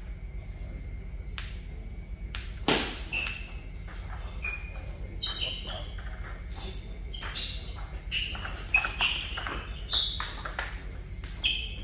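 Table tennis ball being struck with rubber paddles and bouncing on the table during a rally: an irregular string of sharp clicks, some with a short high ping, starting about a second and a half in.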